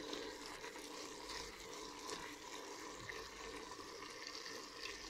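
Faint, steady sizzling and bubbling of cuttlefish and spinach simmering in red wine in a stainless pot, the wine cooking off, with small ticks of a wooden spoon stirring through it.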